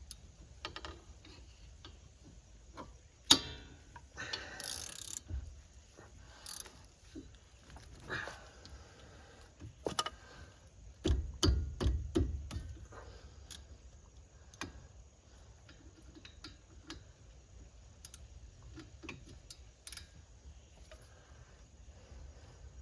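Hand tools working on a car's disc brake assembly: irregular metal clicks, ratchet-like ticking and clanks. A loud knock about three seconds in, a short noisy burst just after, and a run of heavier knocks and thuds around eleven to twelve seconds in, the loudest part.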